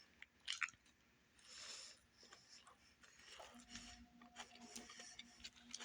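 Near silence: faint room tone with a few soft clicks and a low steady hum.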